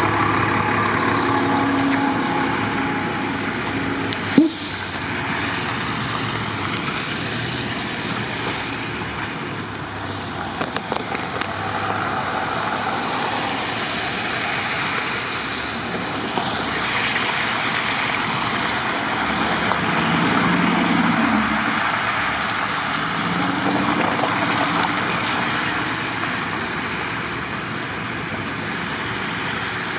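Steady street noise of vehicles, with engine sounds rising and falling, and one sharp knock about four seconds in.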